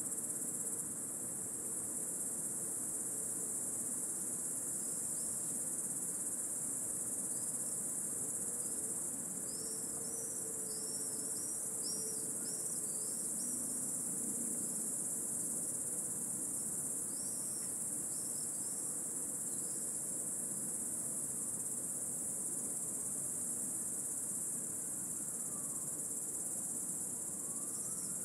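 Intense, unbroken chorus of cicadas, a steady high-pitched shrill drone. Faint short chirps from another caller come and go through the middle.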